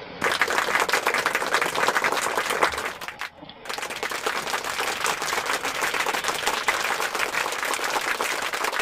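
Applause, a dense crowd-like clapping that starts suddenly, breaks off for a moment about three seconds in, then carries on steadily.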